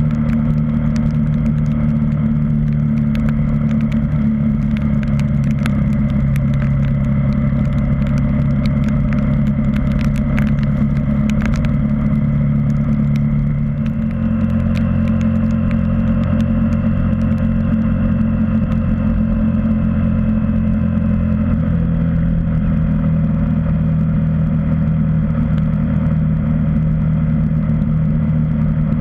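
KTM 390 Duke's single-cylinder four-stroke engine running steadily at road speed. About halfway through, the note dips briefly and settles lower, as at a gear change, then climbs again about three-quarters of the way in. Scattered sharp ticks in the first half are rain striking the camera.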